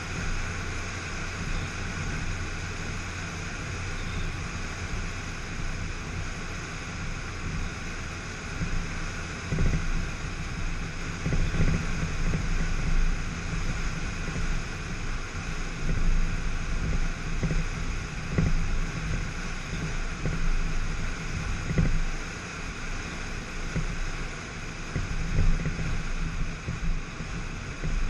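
A 2004 Volkswagen Jetta turbo driving at speed, with steady road and wind noise over a low rumble. From about ten seconds in, irregular low thumps and swells come through.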